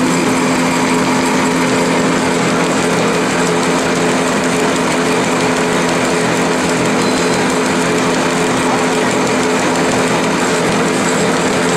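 EPE foam extruder line running steadily: a constant machine hum with a hiss over it, at an even level throughout.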